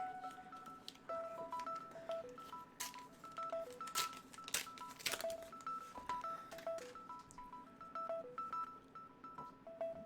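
Background music: a simple electronic melody of short beeping notes, with a few sharp clicks among them.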